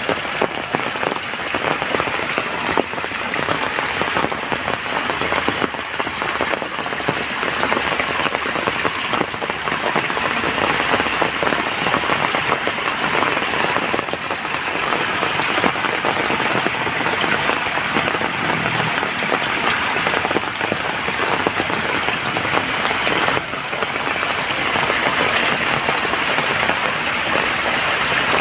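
Heavy rain falling steadily, a dense patter of drops on surfaces.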